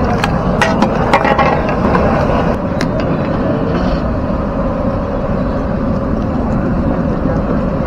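Steady roar of a gas burner under a large aluminium cooking pot. A metal ladle clinks and scrapes against the pot several times in the first second and a half.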